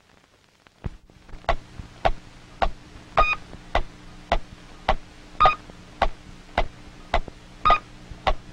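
Electronic sci-fi sound effect: a steady ticking, just under two ticks a second, starting about a second in, with a short beep on every fourth tick, three beeps in all, over a low steady hum.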